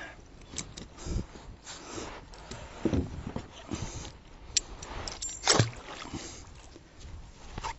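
Kayak anchor rope being hauled in and wound onto a hand spool, with scattered rustles and knocks against the kayak; the loudest knock comes about five and a half seconds in.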